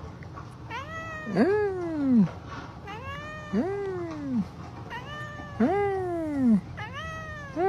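Domestic tabby cat giving long, drawn-out yowling meows, four in all, about two seconds apart, the last starting near the end. Each call rises briefly and then slides down in a long falling wail.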